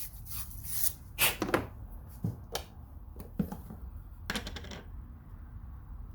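Copper pipe and fittings being handled while a solder joint is prepared: a few separate clinks and scrapes, with a short run of quick rubbing strokes near the end.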